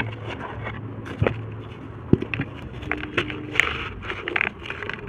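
Dry red dirt shapes being crumbled and crushed by hand: gritty crackling with irregular crunches and a few sharper cracks.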